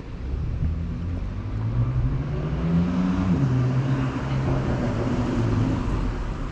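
A car engine accelerating close by: its pitch climbs, drops suddenly at a gear change a little over three seconds in, then runs steady.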